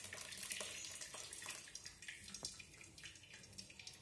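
Lemon-curdled milk and whey pouring from a steel pot onto a cloth-lined bowl, straining out paneer. It is a faint liquid trickle with light clicks from a steel spoon, tapering off toward the end.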